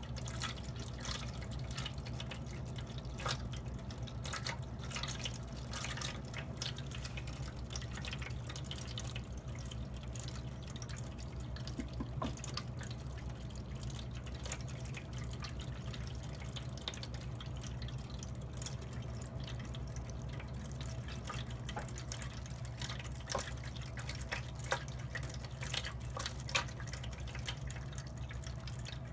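Water tap running into a sink, with many small, irregular drips and splashes over a steady low hum of flowing water.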